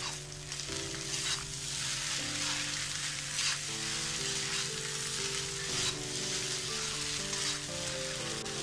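Egg noodles and vegetables sizzling in a hot wok while a metal spatula tosses and scrapes them, with several irregular scraping strokes over a steady hiss. Soft background music plays underneath.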